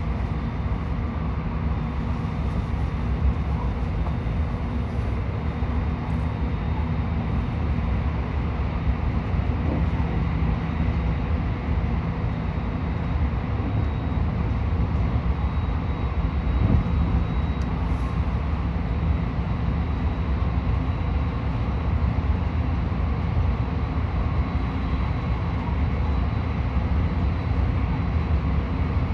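Cabin noise of a JR West 223 series 2000-subseries electric train running: a steady low rumble of wheels on rail, with a faint steady whine over it.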